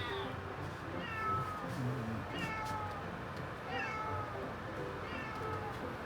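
Recorded kitten meows played from a smartphone app: four short, high mews that fall in pitch, repeating evenly about every second and a half.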